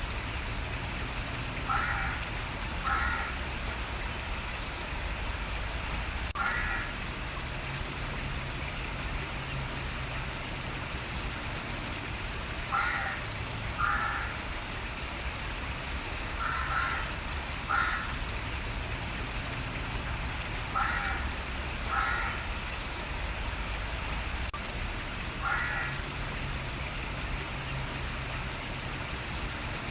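Running water flowing steadily while a bird gives short calls, about ten in all, often two in quick succession.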